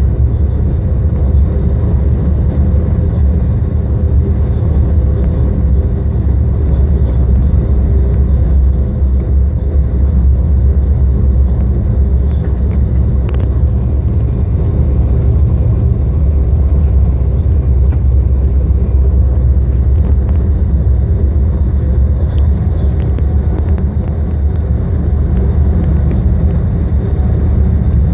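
Inside the driver's cab of a DB class 185 electric locomotive running along the line: a steady low rumble of wheels and running gear on the rails, with faint steady tones above it and a few light clicks.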